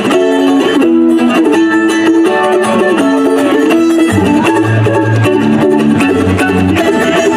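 Live band playing a song's instrumental opening, with mandolin and acoustic guitar picking; low bass notes join about four seconds in.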